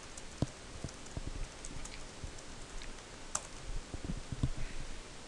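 Computer keyboard keystrokes: a password typed as a string of separate key presses, with one sharper click about three and a half seconds in and a short run of dull low knocks just after.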